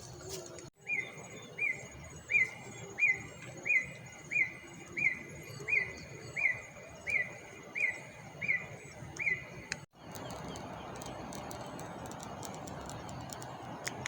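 A bird calling one short, clear, downward-slurred note over and over, about one and a half times a second, thirteen times, then stopping. After that comes a steady outdoor hiss with a few faint clicks.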